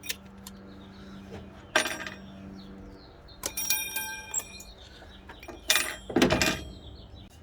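Metal tools and parts clinking and knocking by hand, with a short stretch of ringing metallic clanks a little past halfway and a duller thud near the end, over a faint steady hum.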